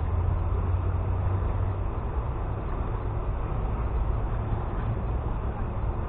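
Steady outdoor background noise with a strong low rumble and no distinct events.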